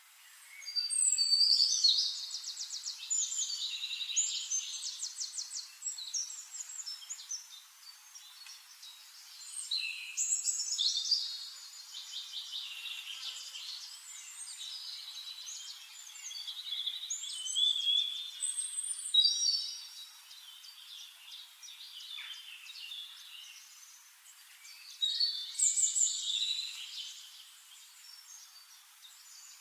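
Songbirds singing fast, trilling, high-pitched phrases in four separate bursts of song with quieter pauses between them, over a faint steady hiss.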